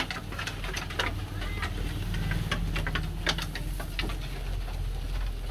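Sheep pulling and chewing fresh cut grass at a wooden feed trough: irregular crisp crunches and rustles, a few sharper ones, over a steady low hum.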